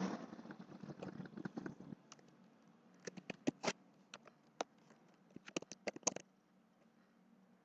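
Computer keyboard typing: irregular short clicks of keystrokes in small clusters, over a faint background hum that drops away about two seconds in.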